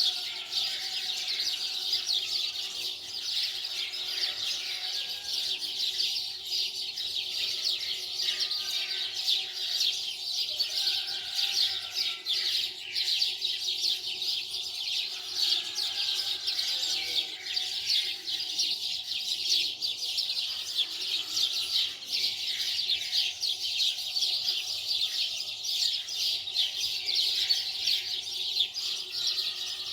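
Many small birds chirping at once: a dense, unbroken chorus of quick high chirps.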